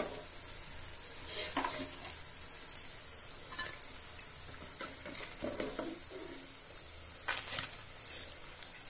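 Hot oil sizzling steadily around soya chaap pieces shallow-frying in a frying pan. A few sharp clicks and scrapes come from a slotted metal spoon against the pan as the finished pieces are lifted out.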